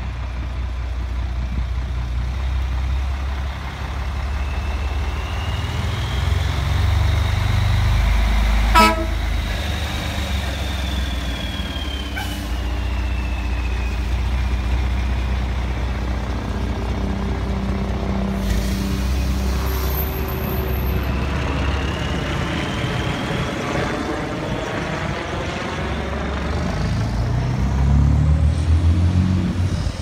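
Diesel engine of a large truck-chassis motorhome running as it pulls out and drives past, with a high whine that rises and falls. A short, sharp horn toot sounds about nine seconds in, and the engine grows louder near the end as it accelerates away.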